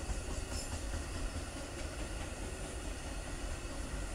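Amtrak Auto Train's enclosed autorack cars rolling past on the rails, a steady low rumble of wheels and car bodies. A brief high-pitched squeal comes about half a second in.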